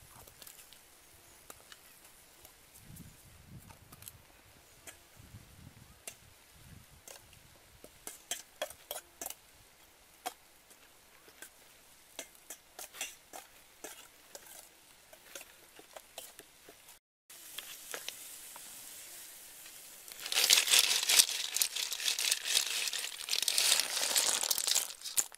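Light clicks and taps of a small spoon and metal bowl as seasoning is scooped and mixed. Near the end comes a loud, dense rustling and clattering as leaves are handled over a metal wok full of snail shells.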